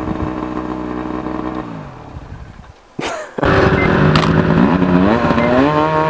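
Ski-Doo 600 snowmobile engine running steadily, then dropping in pitch and fading about two seconds in. After a sharp click near the middle, it comes back louder, revved up and down again and again as the sled is held up on its track in a wheelie.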